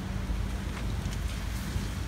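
Steady low outdoor rumble with a low, even hum underneath and no clear events.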